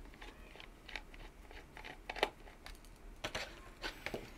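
Small screwdriver backing out the battery-cover screw of a plastic-cased digital multimeter: faint scraping with a few sharp clicks, the clearest a little past two seconds in and two more near the end.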